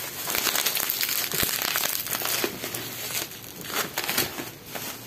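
Plastic packaging and bubble wrap crinkling and rustling as it is handled and pulled open. The crackles come in a dense, irregular run that is loudest in the first three seconds and thinner near the end.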